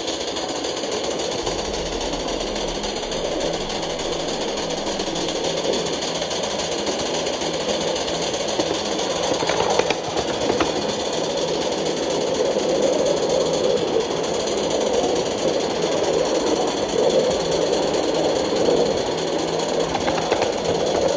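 Coal-fired 3.5-inch gauge LBSC Juliet live steam locomotive running under steam, its exhaust beating in a rapid, steady rhythm. It grows a little louder in the second half.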